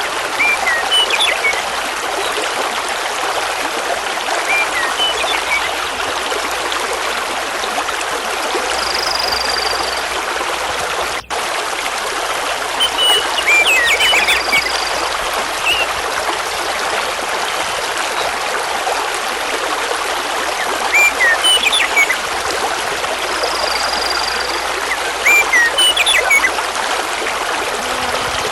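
Mountain river rushing steadily over large stones, with songbirds singing short chirping phrases every few seconds over it, some ending in a brief high held note. The sound cuts out for an instant about eleven seconds in.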